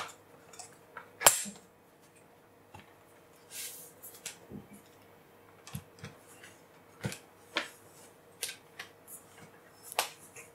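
Plastic clicks and knocks of a laptop being handled: one sharp snap about a second in as the battery pack clicks into place in the LifeBook E8010, then scattered lighter taps and knocks as the laptop is turned over and set down.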